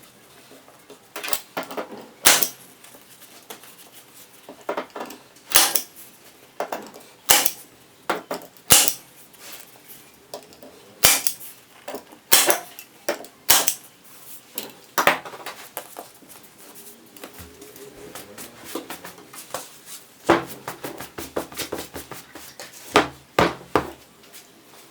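Sharp, irregular clacks and knocks from hand-tool work on a chair, about a dozen loud ones a second or two apart, with a busier stretch of quicker, lighter clicks near the end.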